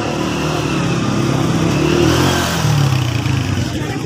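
Motorcycle engine running close by and revving, its pitch rising about two seconds in.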